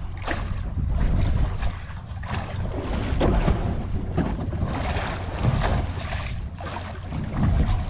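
Wind buffeting the microphone in uneven gusts, with sea water splashing against the boat's hull.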